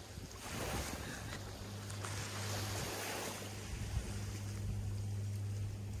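Small waves washing in and out on a sandy beach, the wash swelling and easing every few seconds, with wind on the microphone. A steady low hum is also there, dropping out early and coming back for the rest.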